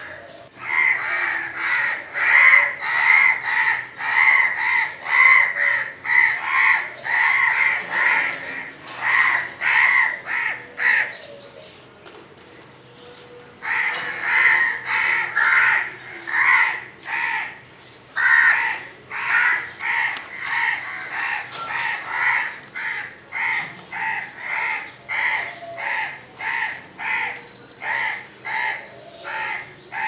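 House crows cawing harshly as they mob a barn owl: a rapid, steady run of caws, about two a second, with a pause of two or three seconds around the middle.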